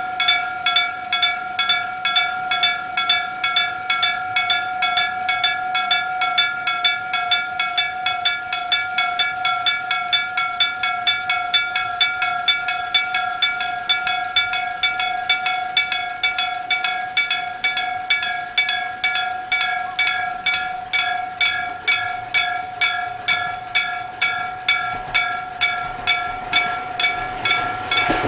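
Electric-bell-type railway level-crossing warning bell: a bell mounted on the crossing post struck directly by its hammer, clanging "kan, kan, kan" in a fast, even rhythm with a clear ringing tone.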